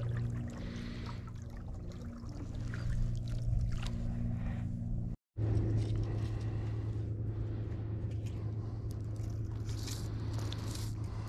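Boat motor running steadily with a low, even hum, and faint splashes of water. The sound drops out for a moment about five seconds in, then the hum resumes.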